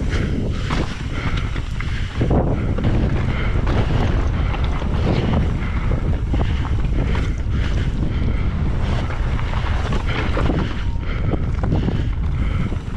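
Strong wind buffeting the microphone in a steady low rumble while a mountain bike rolls over rough trail, with scattered knocks and rattles.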